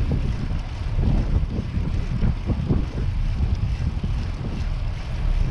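Wind buffeting the microphone of a camera on a moving bicycle: a low, uneven rumble that rises and falls without let-up.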